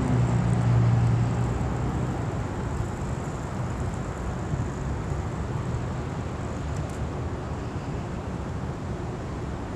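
Kerosene-heated Stirling engine fan running, under a steady low rumble of outdoor noise; a low hum fades out in the first second or two.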